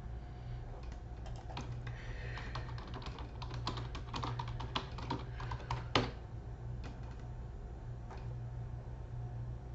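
Typing on a computer keyboard: quick runs of key clicks, thickest in the first half, with one sharper click about six seconds in and a few scattered clicks after. A steady low hum sits underneath.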